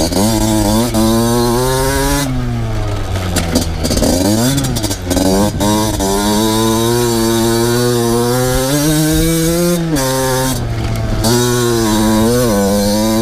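Two-stroke motocross bike engine revving hard as it is ridden, its pitch climbing and then dropping back several times as the rider opens and closes the throttle.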